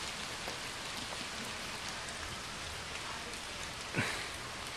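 Steady hiss and patter of a wintry mix of sleet, rain and wet snow falling, with small scattered taps. A brief high-pitched sound comes about four seconds in.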